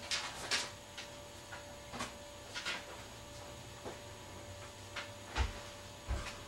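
Scattered faint clicks and knocks with a few dull thumps, from things being handled and moved out of sight, over a steady low electrical hum.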